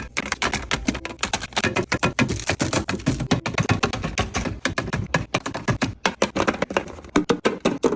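Quick clacks and taps of plastic containers and packages being set down and arranged in a refrigerator, several knocks a second.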